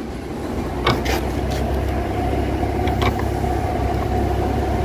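A steady low mechanical drone, like a nearby engine or machine running, with a faint steady tone over it from about a second in. A few light clicks sound as metal steering-rack parts are handled.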